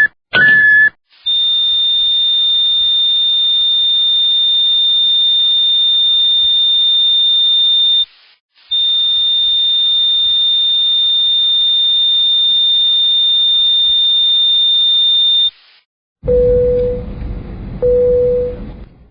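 Electronic warning sounds in succession: the last few quick high beeps, then a steady high-pitched alarm tone held for about seven seconds, broken once by a short gap and sounded again for about seven seconds. Near the end a lower, harsher buzzer tone starts, sounding in two short pulses.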